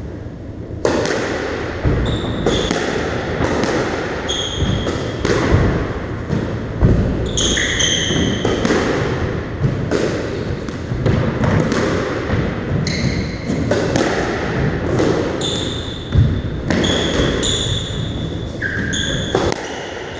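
A squash rally: the ball is struck by rackets and slaps off the court walls and floor in a run of sharp knocks about a second apart, with short high squeaks of trainers on the wooden floor between them.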